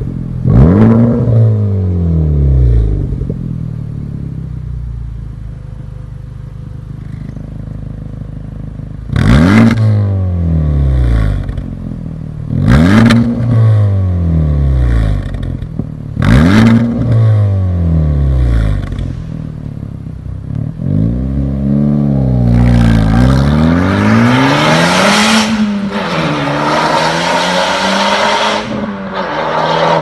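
Honda Civic Type R FK8's turbocharged 2.0-litre four-cylinder through an Fi Exhaust valvetronic catback with catless downpipe: a rev near the start, a spell of idling, then three sharp throttle blips a few seconds apart, each dropping straight back. Near the end comes a longer run of rising and falling revs as the car accelerates away.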